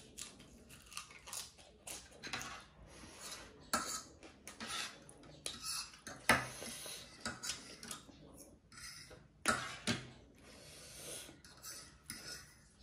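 Metal spoon and fork scraping and clinking on a serving tray as leftover instant noodles are gathered up, a run of irregular clicks and scrapes with the loudest about six seconds in, with close-up chewing between them.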